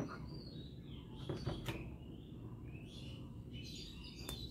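Faint clicks and taps of hard plastic toys being set down and picked up on a table: one at the start, a few about a second and a half in, and one more near the end.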